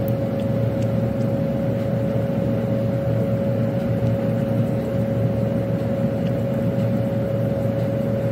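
A steady machine hum with a constant whining tone over a low drone, unchanging throughout.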